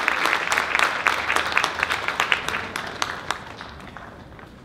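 Audience applauding. The clapping is dense at first, then thins out and fades over the last second or two.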